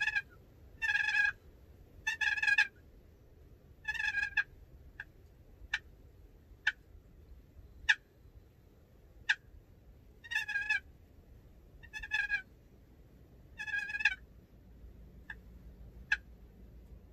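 Wild turkey calling: about seven short rattling gobbles, spaced irregularly, with single short, sharp notes in between them, mostly in the middle and near the end.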